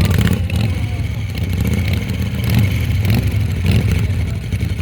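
Harley-Davidson V-twin motorcycle engine running loud, a rough, steady rumble.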